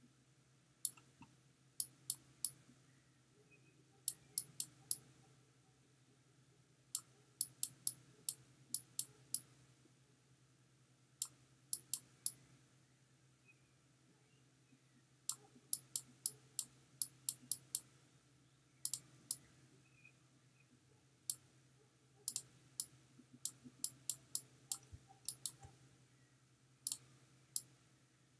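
Computer mouse clicking in quick clusters of two to four sharp clicks every second or two, over a faint steady low hum.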